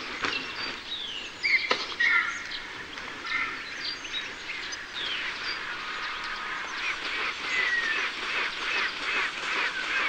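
Griffon vultures calling: many overlapping calls, and in the second half a run of quick repeated notes, about three a second.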